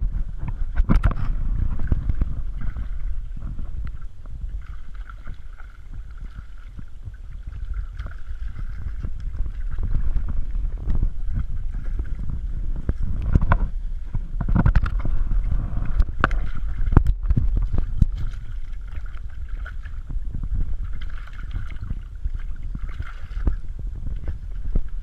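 Water sloshing against a small open boat's hull with wind buffeting the microphone, a heavy low rumble, broken by a few sharp knocks.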